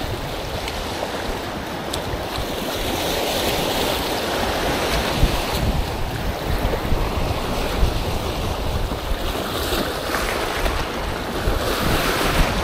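Sea surf breaking and washing up the beach, swelling a few seconds in and again near the end, with wind buffeting the microphone.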